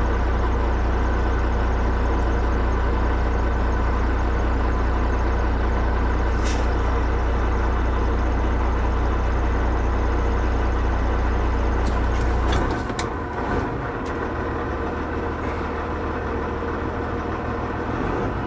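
Heavy truck's diesel engine idling in neutral, heard inside the cab as a steady deep hum, with a few sharp clicks. About twelve and a half seconds in the hum turns to an uneven, fluttering rumble and drops a little in level.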